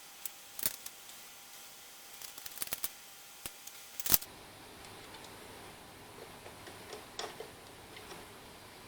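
Scattered light clicks and taps of hand tools and small metal parts, a sharper click about four seconds in, as a throttle cable is fitted to a lawn tractor's engine governor.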